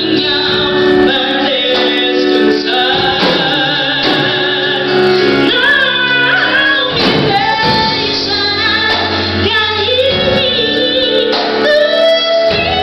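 Live gospel worship song sung by women, with keyboard chords and a drum kit accompanying them, amplified through the church PA.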